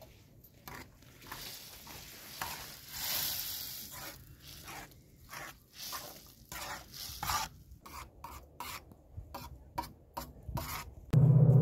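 A cooking utensil scraping and stirring in a pot or pan, in irregular strokes that come faster over the last few seconds. Near the end a loud, steady low drone cuts in suddenly.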